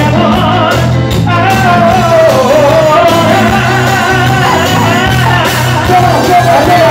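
Live band music with a lead singer: a wavering sung melody over a steady bass line, with drum kit and congas.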